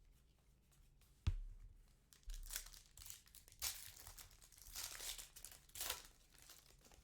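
A sharp tap about a second in, then a foil trading-card pack being torn open, its wrapper crinkling and crackling in several bursts.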